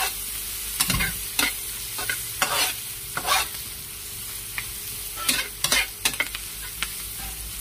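Sliced shallots, garlic, lemongrass and other aromatics sizzling in hot oil in a wok, with a metal spatula scraping and knocking against the pan every second or so as they are stirred. The aromatics are being sautéed until they wilt.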